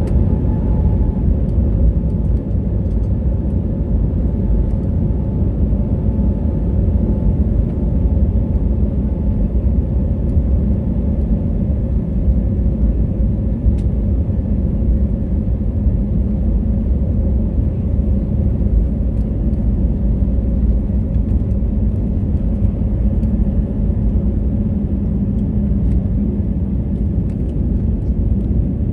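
Cabin noise of an Airbus A320-family jet on its takeoff roll: a loud, steady rumble from the engines at takeoff thrust and the wheels running along the runway.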